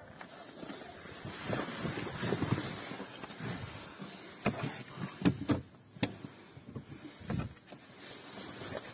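Rustling, shuffling and a few sharp clicks and knocks of someone climbing into the driver's seat of a car through the open door; the engine is not running.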